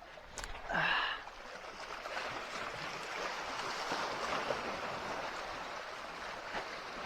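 Seawater washing and lapping against the shore in a steady rushing wash that swells and eases, with one short, loud, pitched call about a second in.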